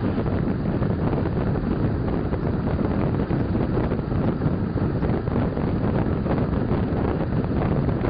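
Steady rush of wind across the microphone at the window of a moving passenger train, over the train's running noise.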